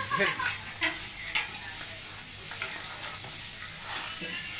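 Raw duck pieces being mixed by hand in a plastic bowl: wet squelching and slapping of meat, with a few sharper wet smacks.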